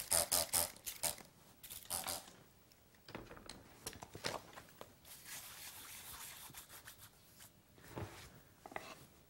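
A trigger spray bottle squirts water onto a sheet of coarse wet/dry sandpaper in a few quick bursts at the start. Then comes faint crinkling and rubbing as the wet paper is laid onto a granite plate and smoothed down by hand so it sticks.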